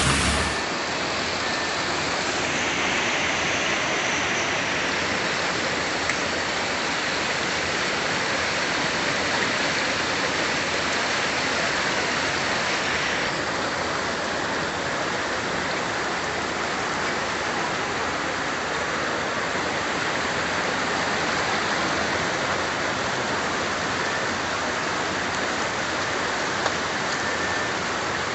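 Heavy rain pouring onto a road, changing a little under halfway through to a torrent of floodwater rushing down a street. It is a steady hiss of rushing water throughout.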